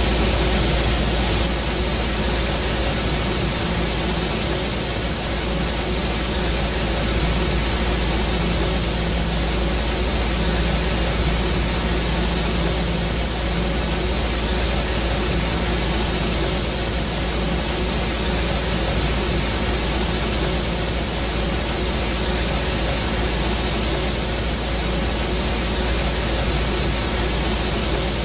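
Milling machine side-milling: a steady, unbroken hiss over a low machine hum, with a few faint steady tones.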